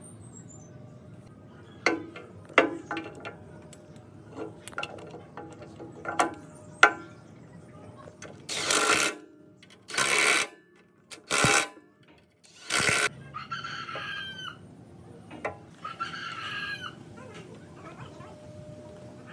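A rooster crowing twice, loud drawn-out calls in the second half. Before it come a series of sharp metallic clicks and four loud rushing whooshes of about a second each, the loudest sounds here, from the hand-turned compressor block.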